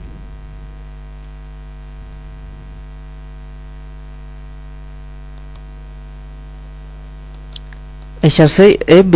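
Steady electrical mains hum with a ladder of evenly spaced overtones, picked up in the recording chain and running unchanged under the pauses in the narration.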